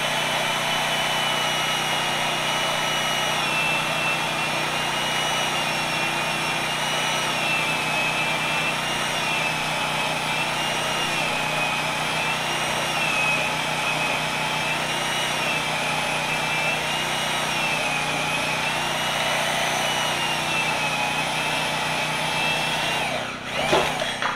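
Handheld metal-cutting circular saw cutting through a steel beam, running steadily under load with a whine that wavers in pitch as the blade bites. Near the end it winds down with a falling pitch and stops.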